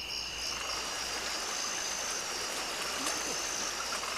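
Mountain stream running over rocks, with a steady high insect trill and faint frog croaks.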